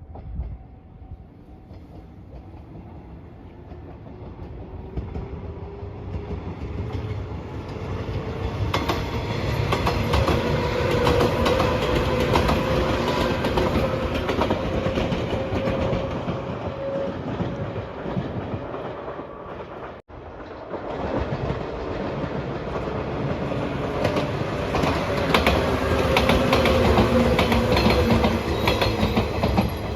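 A train passing close by at a level crossing, its wheels clacking rhythmically over the rail joints with a rising hum from the train's running gear. The sound cuts off abruptly about twenty seconds in, and a second train passage follows.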